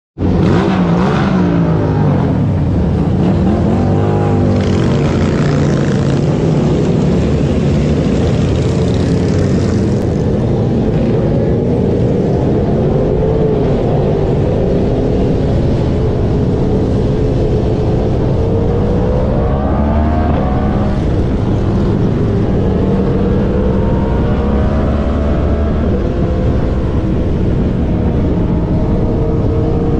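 Motorcycle engine running under way, its pitch rising several times as it accelerates, over a steady rushing noise from riding at speed.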